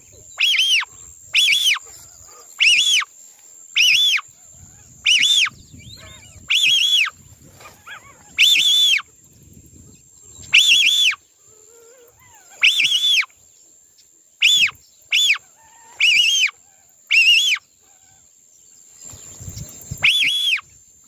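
A hunter's whistle duck call (pio) blown in short, repeated whistled notes, each rising and falling, about one a second with a few longer pauses, calling in marrecas (whistling ducks).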